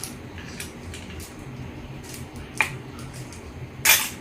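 Plastic toy pieces and their packaging being handled and pried apart: scattered light clicks, a sharp click a little past halfway, and a louder crackling snap near the end.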